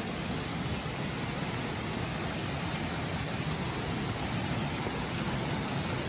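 Steady rush of water from a rocky jungle stream and the waterfall upstream, an even noise with no distinct events.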